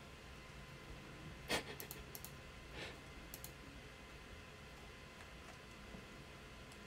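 A few short, scattered clicks and taps of someone working a computer, most of them in the first three and a half seconds, the loudest about a second and a half in; after that only quiet room tone.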